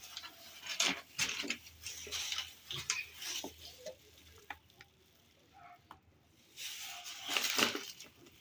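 Light clicks and soft scraping of a utensil on tender oven-baked pork ribs and their dish as the meat is pulled away from the bone, with a quiet pause in the middle and a louder scrape near the end.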